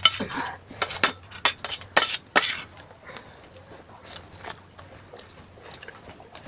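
Cutlery clinking against dishes during eating, several sharp clinks in the first two and a half seconds, then fainter scattered sounds.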